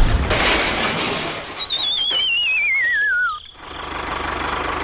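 A wavering whistle glides steadily down in pitch for about two seconds, like a cartoon falling sound effect. Under it runs the steady, pulsing noise of a small engine, which dips briefly just after the whistle ends.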